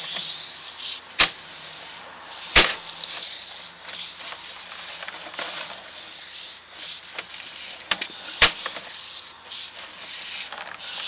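Sewer inspection camera's push cable being fed along a sewer line: an uneven rubbing hiss with four sharp clicks, the loudest about two and a half seconds in.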